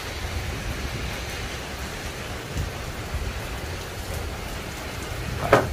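Steady, heavy rain falling.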